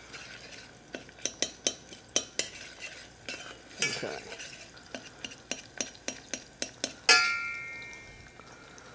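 A utensil stirring garlic frying in olive oil in a small stainless saucepan, clicking and scraping against the pan two or three times a second. About seven seconds in comes a sharp metallic clang that rings on for a second or so as it fades.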